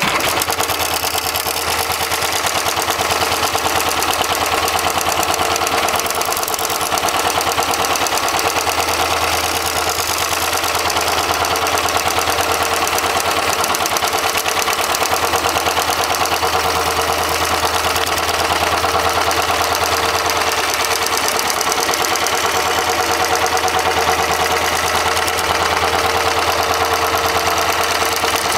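Hightex 72008CS extra-heavy-duty automatic sewing machine running steadily, its needle stitching a thick-thread seam around a clamped shoe sole. It makes a rapid, even clatter over a steady low motor hum.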